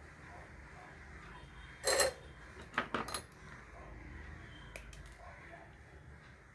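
Small metal tools and parts clinking and clattering as they are handled: one louder rattle about two seconds in, a few quick clicks a second later, and a single tick near five seconds, over a low steady hum.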